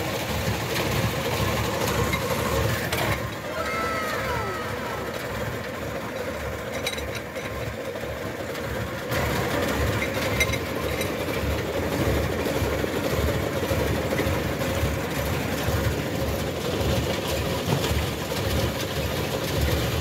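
An engine running steadily at idle, a continuous low throb.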